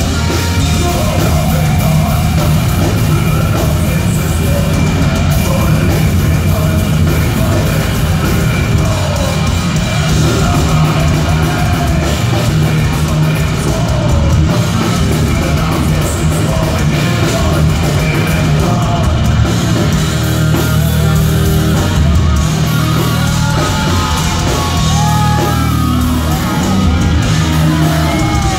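Thrash metal band playing live at full loudness: distorted electric guitars, bass and a pounding drum kit.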